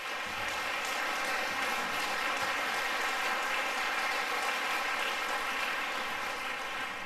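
Audience applauding, a dense steady clapping that begins to die away near the end.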